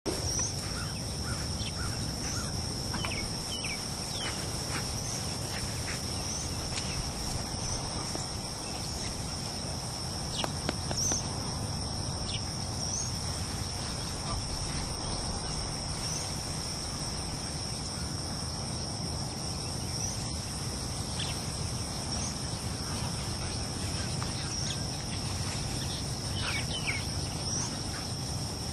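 Steady outdoor insect chorus, an unbroken high-pitched drone, with a few short rising chirps scattered over it and a low rumble of background noise.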